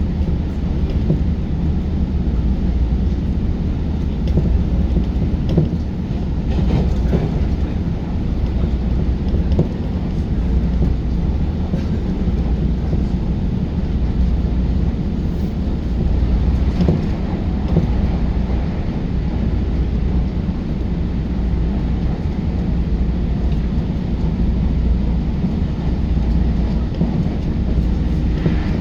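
JR New Rapid commuter train running at speed, heard from inside the passenger car: a steady low rumble of wheels and running gear, with a few faint clicks from the rails.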